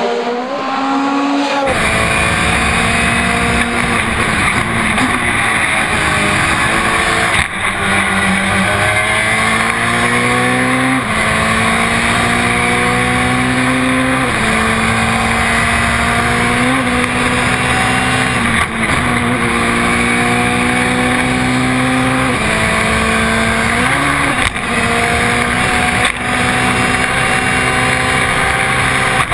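Ford Fiesta RS WRC rally car's 1.6-litre turbocharged four-cylinder engine at full throttle. After a brief pass-by, it is heard up close on board: the pitch climbs through each gear and drops sharply at each quick upshift, over and over, with tyre and road noise beneath.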